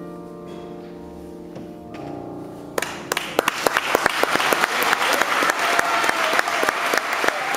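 Petrof grand piano's last chord ringing and fading, with a softer chord struck about two seconds in. About three seconds in, an audience suddenly breaks into applause that carries on and grows louder.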